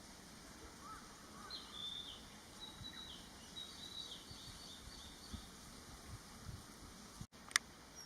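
Common kingfisher fledgling calling: a string of short, thin, high whistles, some doubled. Near the end there is a single sharp click.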